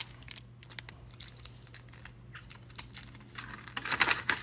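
Small plastic and paper packaging being handled, crinkled and torn open: scattered short rustles and crackles, busier near the end, with a faint steady electrical hum underneath.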